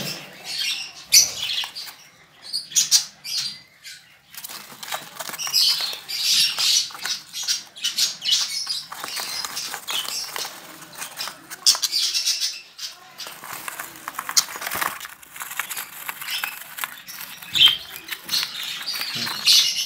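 Budgerigars chattering and chirping busily, with repeated wing flapping and rustling.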